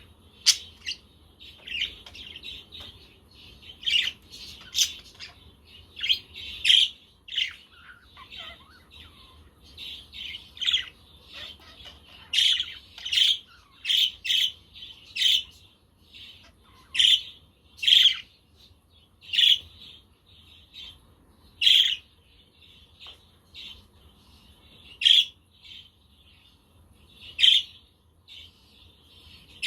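Budgerigars chirping and chattering, with many short, sharp calls; the loudest ones come about every second or two from the middle on.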